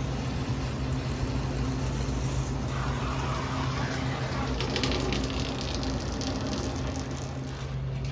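Water spraying and running, likely rinsing the grease and coil cleaner off a Mitsubishi mini split's coil, with a hiss that strengthens about halfway through, over a steady low mechanical hum.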